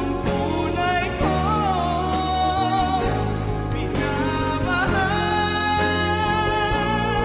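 Male vocalist singing over instrumental backing, holding long notes that waver in pitch.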